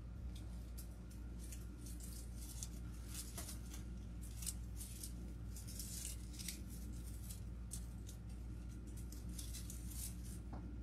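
Artificial flowers and greenery rustling and crackling as their stems are handled and pushed into grapevine wreaths: a string of quick, light crinkles and snaps at irregular intervals, over a faint steady low hum.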